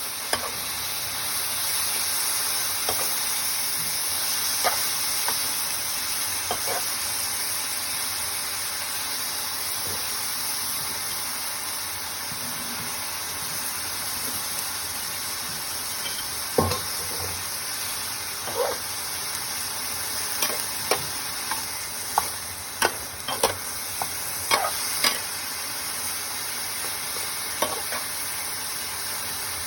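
Pork and morning glory stir-frying in a hot pan, sizzling steadily, with a cooking utensil knocking and scraping against the pan, more often in the second half.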